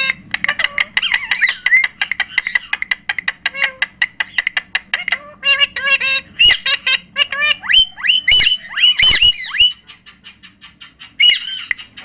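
Parrots squawking in a run of harsh, rapid calls, with several sharp rising shrieks about eight to nine seconds in, then a brief lull before one more call near the end.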